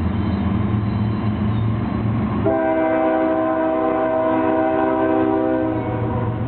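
GE ES44DC freight locomotive's low diesel rumble, then about two and a half seconds in its air horn sounds one long chord of several notes, holding for about three and a half seconds.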